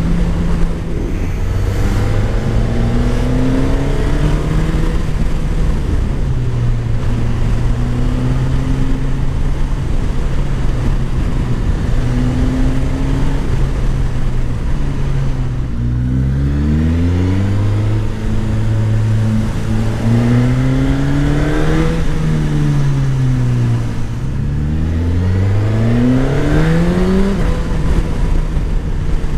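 Suzuki GSX-S1000 GT's 999 cc inline-four engine heard from on board with its stock exhaust, running at a steady pace, then rising in pitch under acceleration about halfway through, easing off and pulling up again near the end.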